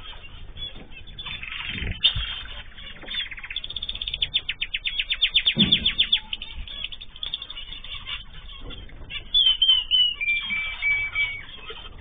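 Pet cage birds calling: a fast trill of chirps for about two and a half seconds, then near the end a whistle that falls and then holds for over a second, with a few low thumps.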